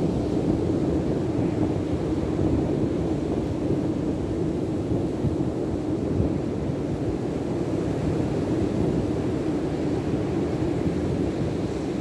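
Steady low rumble of wind buffeting the microphone, mixed with surf breaking on the beach.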